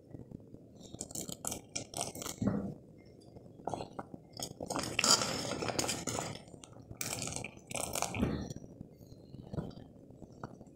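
Metal ladle stirring liquid in a cooking pot, clinking and scraping irregularly against the pot, busiest about halfway through.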